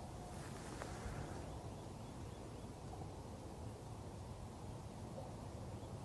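Faint, steady low background rumble, like wind or outdoor ambience, with a brief hiss and a faint click about a second in.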